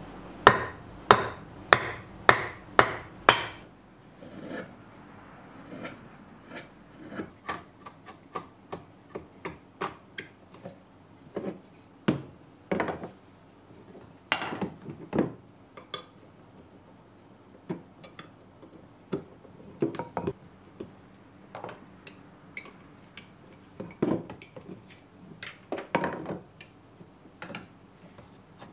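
Hand work on a wooden Japanese plane block (kanna dai): six sharp wooden knocks about half a second apart at the start, then lighter scattered taps and knocks. Near the end a file scrapes at the wood of the block.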